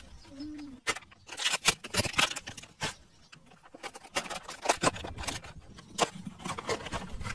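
Plastic snack packaging crinkling and clicking as it is handled and cut open with a knife, a dense run of short sharp crackles.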